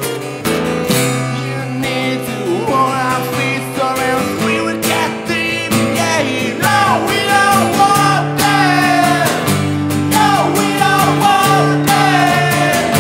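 Live acoustic rock song: two acoustic guitars strummed, with a man's lead vocal coming in about two and a half seconds in and other voices singing along by the end.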